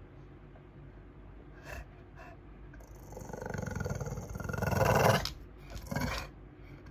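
English bulldog growling and grumbling: two short huffs, then a drawn-out growl that gets louder over about two seconds, and a short one near the end. The dog is agitated, spooked by its owner's crutch.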